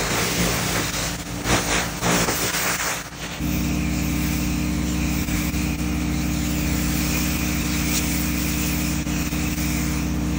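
Pressure washer's engine running steadily, with the hiss of water spray on wet brick pavers over it. The engine note becomes steadier and stronger about three and a half seconds in.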